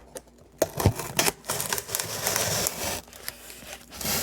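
A folding knife's D2 steel blade cutting through cardboard: a couple of sharp clicks just over half a second in, then a rasping slice for about a second and a half, with lighter scraping after.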